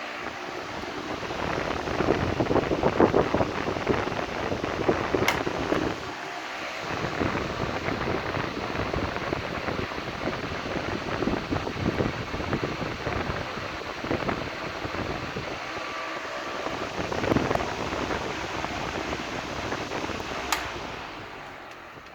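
KOENIC electric fan running: a steady rush of air with uneven swells. A click near the end, after which the sound dies away.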